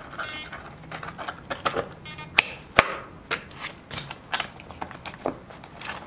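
Scattered sharp clicks and taps of hard plastic and metal, with two brief runs of rapid clicking, as a KST X10 Mini wing servo is handled with hemostats and pressed into its plastic Servorahmen frame.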